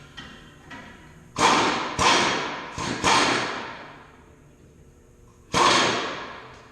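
Hammer blows on the steel of a Kewanee disc harrow: four sharp, ringing metal strikes in quick succession, then one more after a pause of about two seconds, from working a seized part loose during teardown.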